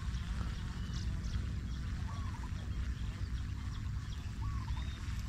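Outdoor ambience of a flooded paddy field: a few short, arching animal calls scattered over a steady low rumble.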